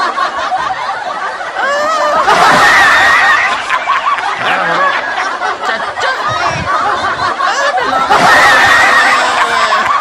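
Laughter, continuous and getting louder twice, a couple of seconds in and again near the end.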